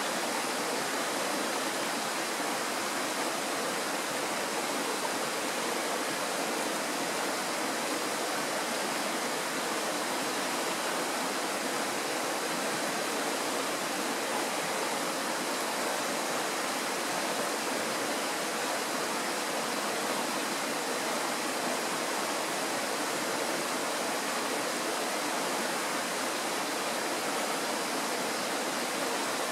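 Kirowa Woda, a Tatra mountain stream, rushing steadily with an even, unbroken noise of flowing water.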